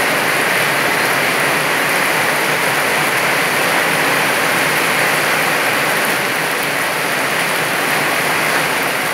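Torrential rain pouring down in a steady, loud, even hiss.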